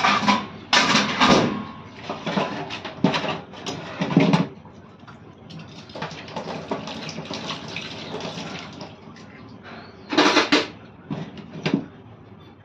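Stainless steel plates and utensils clanking as dishes are washed and stacked at a kitchen sink, with running water between the clatters. The clatters come in short bunches near the start and again about ten seconds in.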